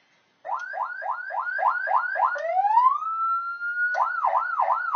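HornBlasters 100-watt electronic PA siren sounding through its speaker and switching between tones. It starts with quick rising whoops, about four a second, then gives one long rising tone that levels off and holds. Near the end it changes to a fast up-and-down yelp.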